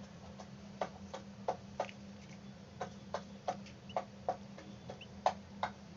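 A hen pecking at grain: irregular sharp beak clicks, two or three a second, over a steady low hum.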